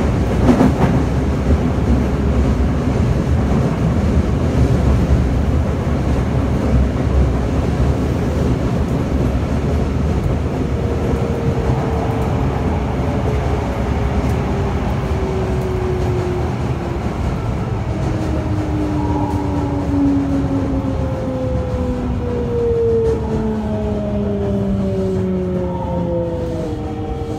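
Toei 5300 series subway car with a Mitsubishi GTO-VVVF inverter, heard from inside: a steady, heavy rumble of wheels on rail with a knock near the start. From about ten seconds in, the inverter's tones fall in pitch, stepping between several notes, as the train slows.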